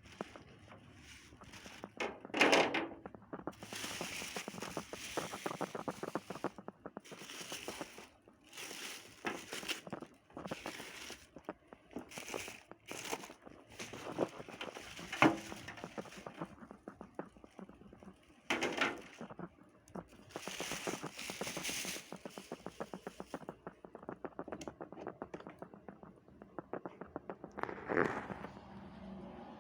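A food steamer and its packaging being unboxed by hand: a continual rustling, scraping and clicking of packing material and parts, with four louder knocks.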